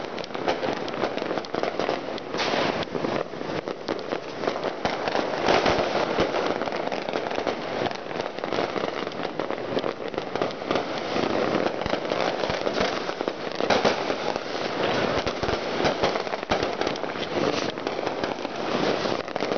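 Many firecrackers and fireworks going off across a city at once, far and near, making a dense, unbroken crackle of overlapping pops and bangs with no single blast standing out.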